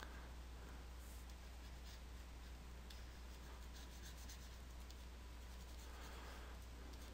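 Faint scratching of a stylus stroking across a graphics tablet, with a slightly louder stroke about six seconds in, over a steady low hum and a few faint clicks.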